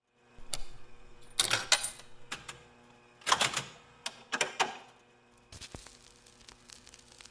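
Quick runs of sharp mechanical clicks and clacks in about five bursts over the first five seconds, then fainter scattered ticks.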